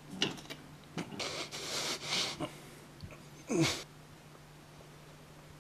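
A woman breathing hard through an open mouth: a couple of sharp catches of breath, a long breathy exhale, then a short voiced sigh that drops in pitch about three and a half seconds in.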